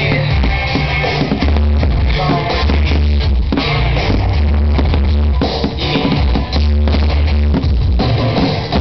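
Loud rock music with drums, a heavy bass line and guitar.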